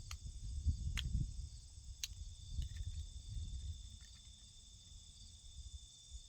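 Steady high-pitched insect chorus of crickets droning. Under it a low, uneven rumble fades out after about four seconds, and three sharp clicks come in the first two seconds.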